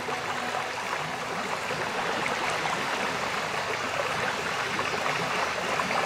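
Steady sound of running water, an even rush with a grainy, bubbling texture and no music over it.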